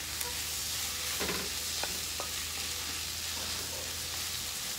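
Diced potatoes with tuna, tomato and chiles sizzling steadily in a nonstick frying pan as a wooden spatula stirs them, with a few light scrapes and taps of the spatula against the pan.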